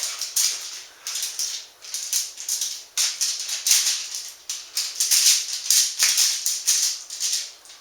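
A spoon or spatula scraping and spreading refried beans thin on a tray: a series of short, rasping strokes, about one or two a second.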